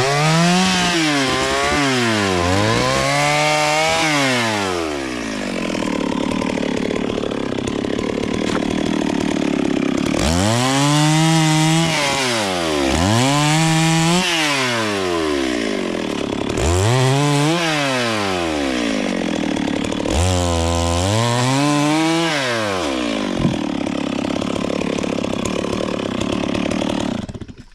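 Two-stroke chainsaw revved up and let back repeatedly, its pitch rising and falling in about six blips, with stretches of steadier running in between as the chain cuts into wood. It cuts off suddenly near the end.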